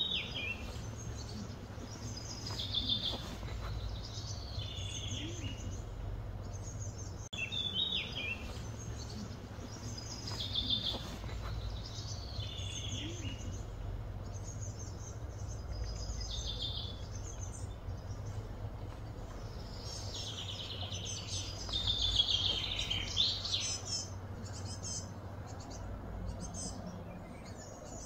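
Birds calling in short, repeated chirping phrases, one every second or two, over a steady low rumble of background noise.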